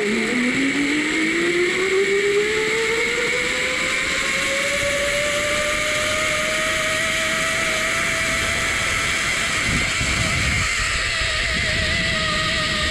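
Zipline trolley pulley running along the steel cable: a whine that rises in pitch over the first five or six seconds as the rider picks up speed, then holds steady. Rushing air noise runs under it throughout.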